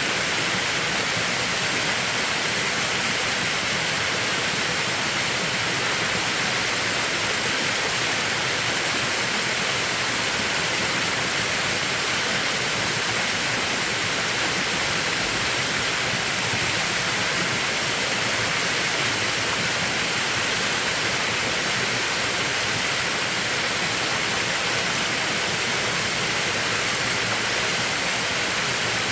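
Mountain valley stream water rushing in a steady, unbroken flow.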